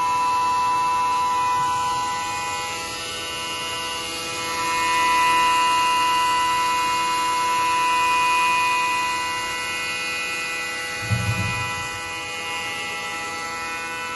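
YCM XV560A vertical machining centre's spindle running at a constant speed, a steady motor whine made of several pitched tones, louder in the middle. A short low thump comes about eleven seconds in.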